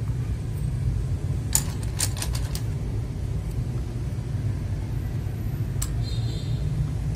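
Steady low background rumble, with a quick run of five or six sharp plastic clicks from mechanical keyboard keys and keycaps being handled about a second and a half in, and one more click near the end.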